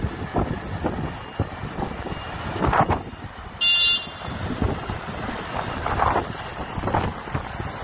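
Wind buffeting the microphone over the low engine and tyre noise of a tractor-trailer with a curtain-sided semi-trailer driving past close by. A short, loud, high-pitched beep sounds about three and a half seconds in.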